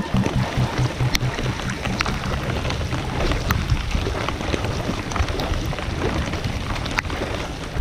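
Rain falling on the river and on a kayak close by: a dense hiss of drops with many sharp ticks.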